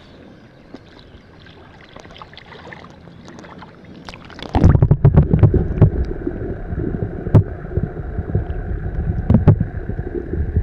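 Water sloshing and rushing around a camera held underwater during a bass release. A few faint splashes at first, then about four and a half seconds in the camera goes under and a loud, muffled, low rumble with scattered knocks takes over.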